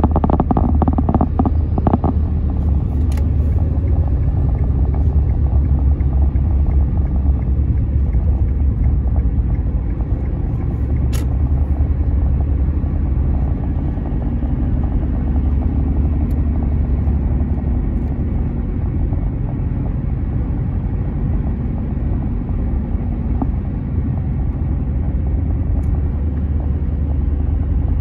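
Car running as heard from inside the cabin: a steady low rumble of engine and road noise.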